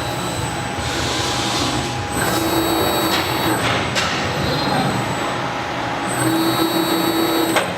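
All-electric CNC mandrel tube bender running through its cycle: its servo drives whine in stretches of a second or so, starting and stopping, over a steady mechanical noise. A sharp click comes about four seconds in and another near the end.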